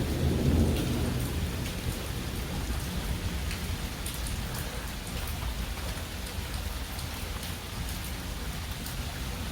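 Steady rain from a thunderstorm, with the low rumble of thunder dying away in the first couple of seconds.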